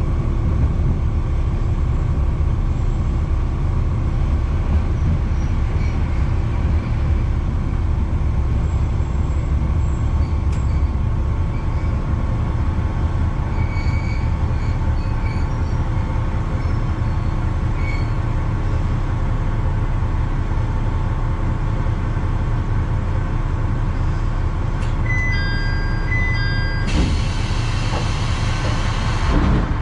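Kishu Railway KR301 diesel railcar running slowly along the track with a steady low engine rumble, drawing to a stop. Near the end there is a repeating high beep and a loud hiss of air lasting a couple of seconds.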